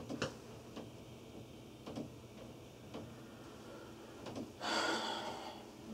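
Faint knocks in the plumbing inside a wall, about one a second, which the owners take for water hammer set off by flushing a toilet upstairs. Near the end there is a louder hiss lasting about a second.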